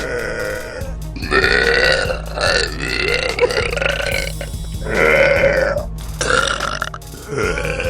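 A girl burping repeatedly: a run of about five long, drawn-out burps, each lasting a second or more, with short gaps between them and another starting near the end.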